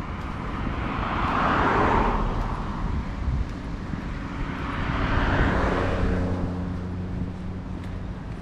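Two motor vehicles passing on a nearby road one after the other. Each one swells and fades over about two seconds, the first loudest about two seconds in and the second about five seconds in, with a low engine hum as the second goes by.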